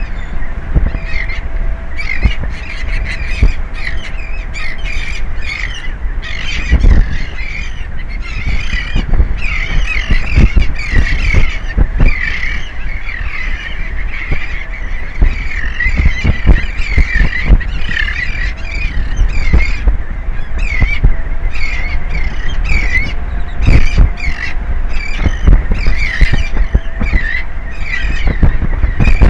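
A flock of seabirds calling over and over, several calls a second, with wind rumbling on the microphone underneath.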